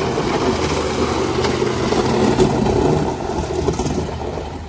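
Motor vehicle engine running steadily, growing louder toward the middle and then fading near the end, as of a vehicle passing on the road.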